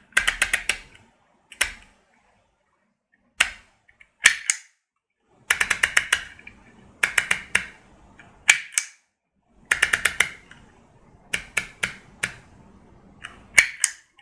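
Handheld HEMA embossing label maker being squeezed again and again: about ten bursts of sharp plastic clicks, each a quick run of several clicks, as letters are pressed into the tape.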